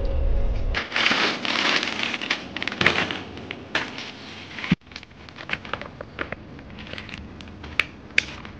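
Plastic grocery bags rustling and crinkling as groceries are unpacked, followed by scattered sharp clicks and crackles of plastic packaging and items being set down on a table. A low rumble in the first second cuts off.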